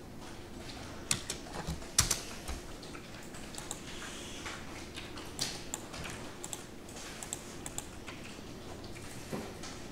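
Computer mouse clicks and keyboard keystrokes: scattered, irregular sharp clicks, the sharpest about one and two seconds in.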